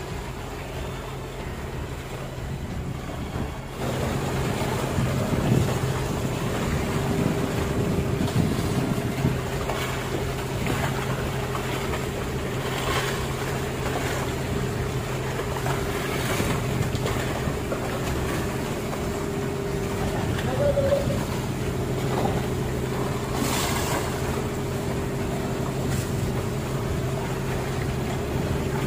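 A fishing boat's engine running steadily at one pitch, with a few sharp knocks on the deck.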